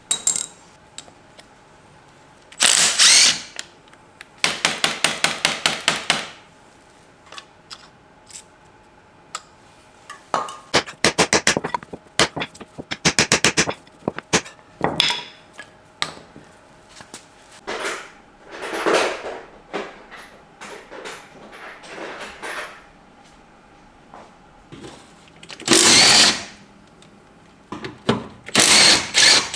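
Power impact wrench hammering in several short bursts of rapid strikes, with short spin-ups between them, as bolts are loosened on a rusted front suspension.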